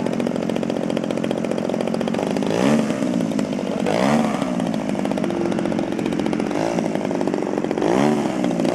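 Single-cylinder two-stroke 30cc DLE petrol engine of a radio-controlled Yak-54 model plane running at high revs, with a chainsaw-like buzz. Its pitch swells and falls back four times.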